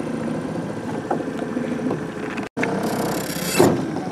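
Small boat outboard motor idling with a steady low hum as a flat-bottom aluminium boat creeps along. The sound drops out for an instant about two and a half seconds in, then a brief rustling hiss rises and peaks near the end.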